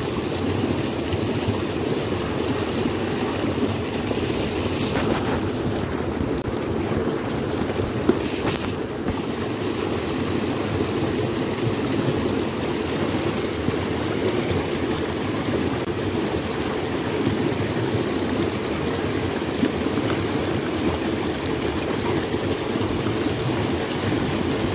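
Water running steadily into a pond, with splashing as a buffalo calf is scrubbed and rinsed in it.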